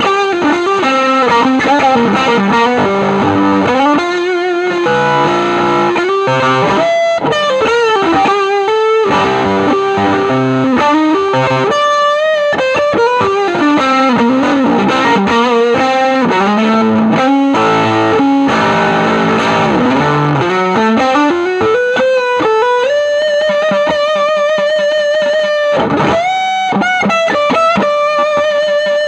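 Electric guitar played through a Spruce Effects Volcanoes silicon/germanium hybrid fuzz pedal into a Milkman The Amp 100: a distorted fuzz lead line with sliding notes, and one note held for about three seconds about three-quarters of the way through.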